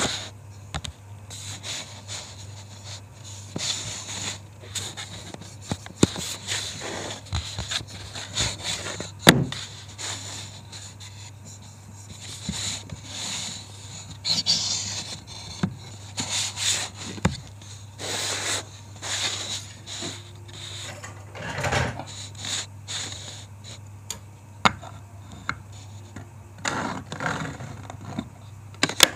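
Hardwood pieces of a corner joint handled and fitted by hand: wood rubbing and scraping against wood and the bench, with scattered light knocks, the sharpest about nine seconds in. A low steady hum runs underneath.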